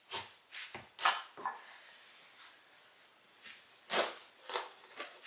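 Chef's knife being forced through a hard-skinned Seminole squash on a cutting board, giving a few short, sharp cracks and knocks: several in the first second and a half, then another few about four seconds in.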